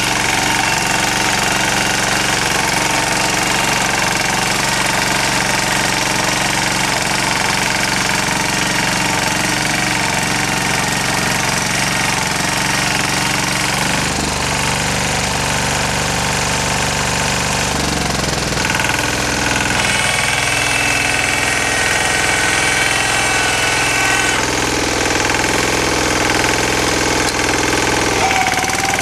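Yağmur YET-510 walk-behind rotary tiller running steadily as its tines churn through garden soil. Its engine note shifts twice around the middle.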